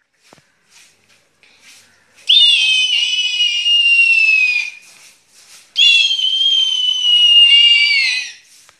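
A boy imitating an eagle's screech: two long, very high screeches, each falling slowly in pitch and sliding down at the end.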